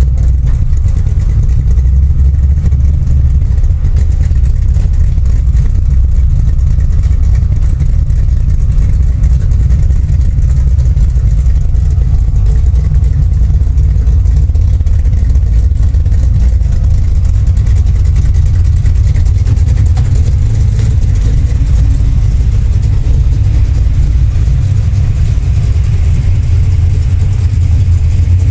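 1971 Plymouth 'Cuda's V8 engine idling with a steady, deep rumble, warming up after a cold start.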